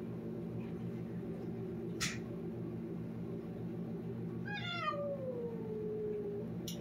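Domestic cat giving one long meow that falls in pitch, starting about four and a half seconds in. A sharp click comes about two seconds in, over a steady low background hum.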